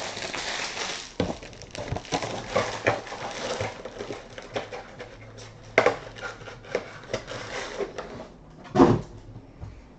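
Hands handling trading cards and their packaging on a table: rustling and crinkling with small clicks, and two sharper knocks, the louder one near the end.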